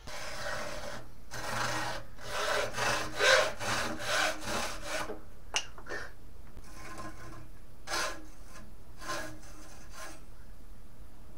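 Hacksaw cutting through a fishing rod clamped in a bench vise, in a run of rasping back-and-forth strokes. The strokes stop for a moment about halfway, then a few more follow.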